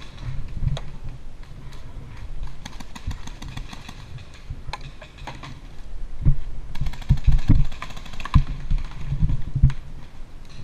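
Paintball fire: a scattered run of sharp clicks and low knocks from paintball markers shooting and balls striking the bunker. The clicks come thicker in the second half.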